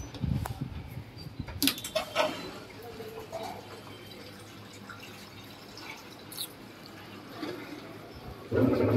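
A few sharp clicks and taps from the buttons of a top-loading washing machine's control panel being pressed, over a faint steady hum. A louder, pitched droning sound sets in near the end.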